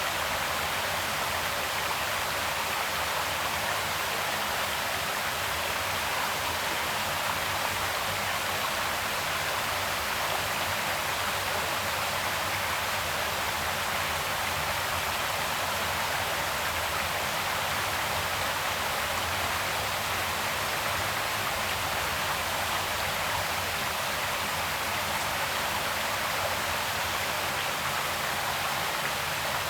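Creek water flowing steadily, an even rushing sound.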